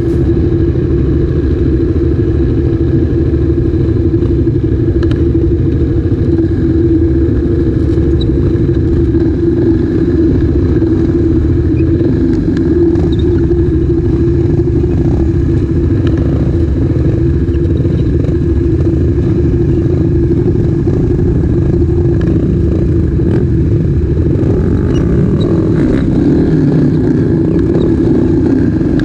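Motorcycle engine running steadily close to the microphone while the bike stands still, with a constant, even pitch throughout.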